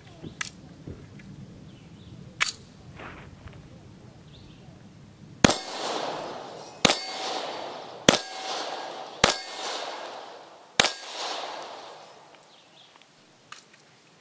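Two sharp clicks, then five pistol shots from a Polish P-83 a little over a second apart. Each shot is followed by the ring of a steel reaction plate being hit.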